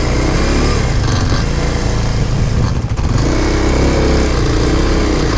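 Off-road motorcycle engine running while the bike rides along a dirt track, the sound briefly dipping a little under three seconds in.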